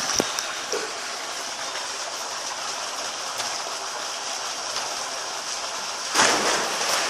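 A steady hiss, then a sudden loud splash of water about six seconds in.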